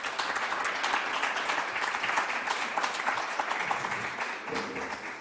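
Audience applauding: dense, steady clapping from a seated crowd that begins to thin out near the end.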